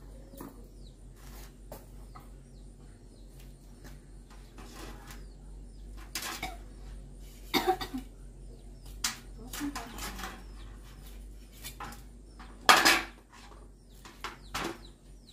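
Knife working a piece of grilled meat on a metal tray: irregular clinks and scrapes of the blade against the tray, with a few louder knocks.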